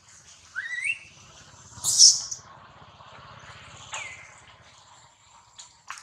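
High-pitched wild animal calls: a short rising call, a loud sharp chirp about two seconds in, and a falling call about four seconds in, over a faint steady high tone.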